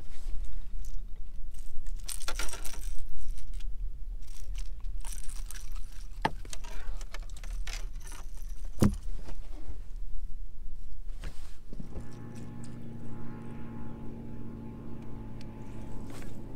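Metal rattling and jangling, then two sharp knocks, as a small striped bass is handled on a metal lip-grip tool. About three-quarters of the way through, a steady low motor hum starts and carries on.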